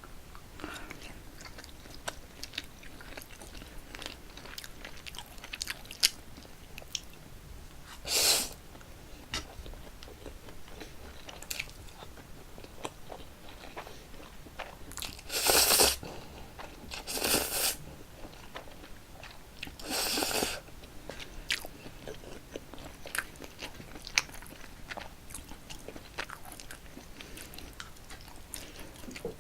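Close-up eating sounds of a person chewing Paldo bibim-myeon cold spicy noodles: many small wet clicks and smacks of chewing, with a few louder, longer bursts of noise about a quarter of the way in and three more around the middle.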